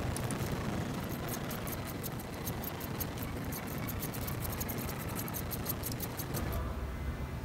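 Socket ratchet clicking rapidly as it backs off a 13 mm nut on the shifter assembly, about five or six clicks a second. The clicking stops about six and a half seconds in.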